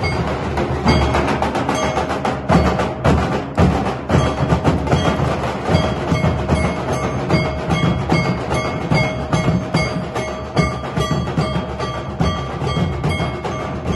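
A group of large double-headed dhol drums beaten with sticks in a fast, dense rhythm. A sustained ringing tone runs over the beat from about six seconds in.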